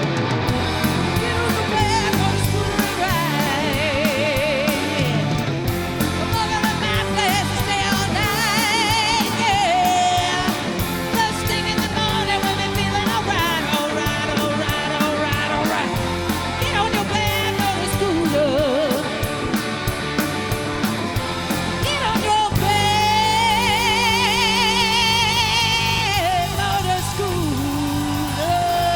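A rock band playing live, loud and continuous, with electric guitar lines that bend and waver in pitch over bass and drums; the texture changes about three-quarters of the way through.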